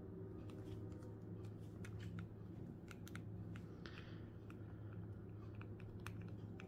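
Faint, scattered small clicks and taps of a plastic action figure's joints and parts being handled and posed by hand, over a steady low hum.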